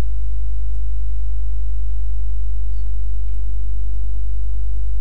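Steady electrical mains hum picked up in the recording: an unchanging low buzz with a stack of overtones, with a few faint clicks.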